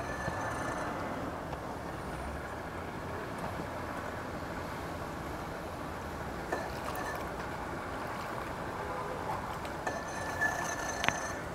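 Boat engine running steadily, heard as a low even rumble, with two short clicks near the end.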